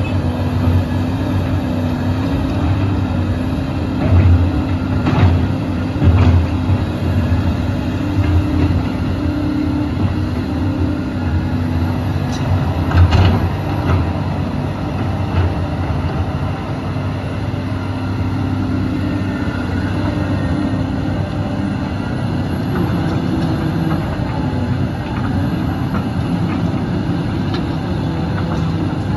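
Volvo EC240 crawler excavator's diesel engine running steadily under hydraulic load as the upper structure swings and the boom lifts. A few short knocks come in the first half.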